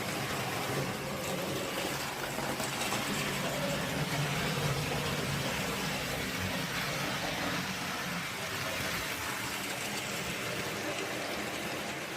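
Model BR Standard Class 5 steam locomotive running laps of a model railway layout: a steady, unbroken running sound of the model train on its track.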